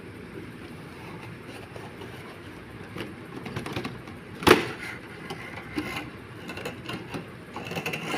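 A plastic pencil case and its clear plastic box being handled on a cloth-covered table: rustling and scraping, with a sharp knock about halfway through and another at the end.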